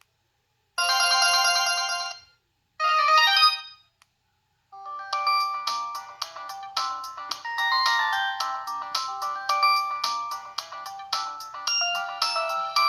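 Samsung T249 phone's preloaded ringtones playing through its small speaker: two short chiming tones, then after a pause a fast, busy electronic melody of quick notes starts about five seconds in.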